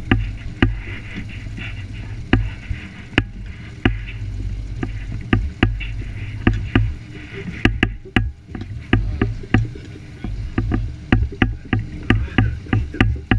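Small outboard-powered boat under way over ocean chop: a steady low rumble with water hiss, broken by frequent sharp knocks and slaps as the hull meets the waves, coming faster in the second half.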